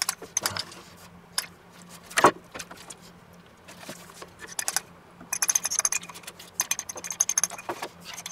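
Metal spoon clinking and scraping against a small ceramic bowl while apricot jam is scooped out, in quick runs of light ringing taps, with one louder knock about two seconds in.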